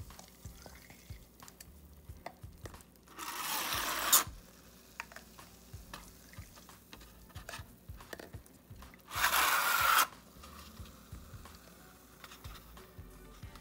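Water being drawn out of a snow globe with a large plastic syringe and squirted into a styrofoam cup: two loud rushing squirts about a second long, one about three seconds in and one about nine seconds in, with small clicks and taps of the plastic syringe in between.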